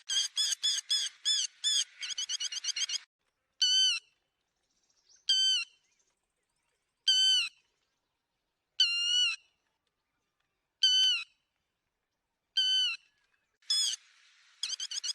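Lapwing calling: a rapid run of sharp, high calls for about three seconds, then single loud calls spaced roughly two seconds apart, and another rapid run starting near the end.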